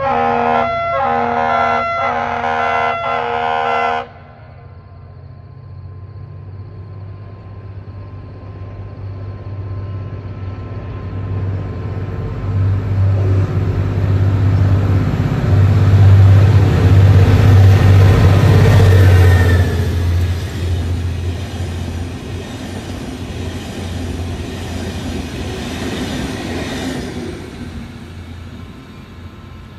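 Henschel diesel locomotive sounding its horn in a run of short blasts during the first four seconds, then its engine drone building as the train approaches. The drone is loudest with the rolling noise of the coaches as the train passes, then fades away near the end.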